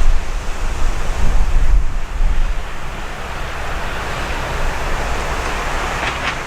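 Steady, loud noise of a jet airliner's engines, with wind buffeting the microphone as a heavy low rumble for the first couple of seconds.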